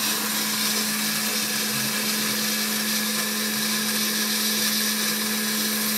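Small hobby CNC machine's spindle motor running steadily while milling a pocket: a constant hum with a high, hissing whine.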